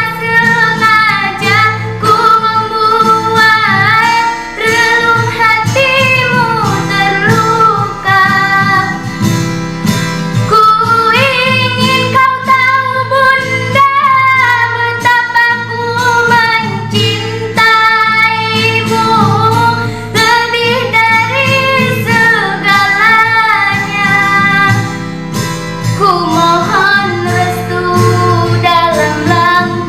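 A young girl singing a slow ballad solo, with long held, wavering notes, over a karaoke backing track with guitar.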